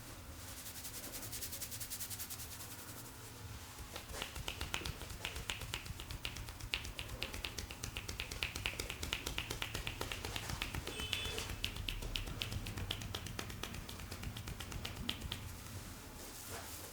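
Fast percussive tapping on the head during an Indian head massage: the barber's loose fingers clap together in a quick, even run of sharp clicks that starts about four seconds in and stops near the end.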